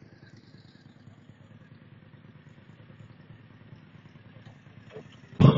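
Sport motorcycle engines idling faintly and steadily, then a motorcycle engine suddenly revs loudly near the end.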